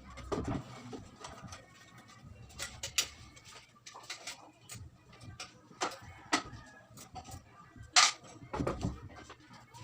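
Irregular sharp knocks and clicks, about eight in all, spaced unevenly, the loudest about eight seconds in.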